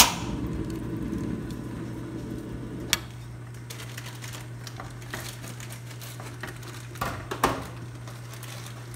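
Kitchen clatter over a steady low hum: a sharp knock at the start, another about three seconds in, and a couple more near the end, like utensils and bowls being handled while the bakso is served from the pot.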